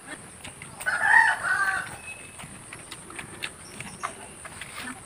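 A rooster crowing once, a pitched call lasting about a second, starting just under a second in.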